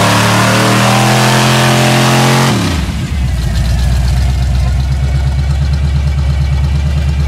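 A lifted pickup truck's engine is held at high revs in the mud, with a loud rush over it. About two and a half seconds in it drops off, and it settles into a steady, pulsing idle.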